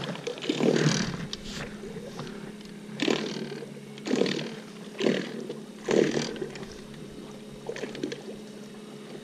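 Minn Kota electric trolling motor running with a steady low hum, broken by about six rough surges of churning as its propeller works through shallow water.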